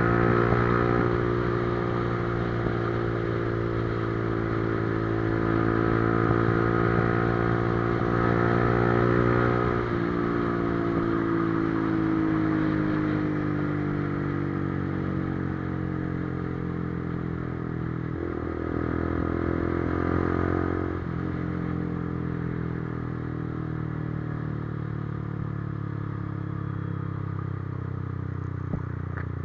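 Motorcycle engine and exhaust running steadily, the pitch sinking slowly through the middle.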